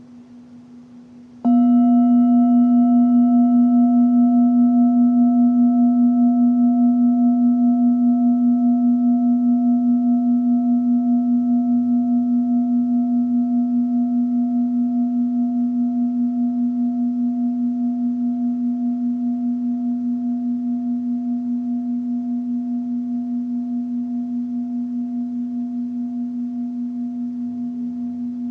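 Singing bowl struck once about a second and a half in, over the faint ring of the same note, then ringing on with a low note and several higher overtones. The ring fades slowly with a gentle, even wavering in loudness.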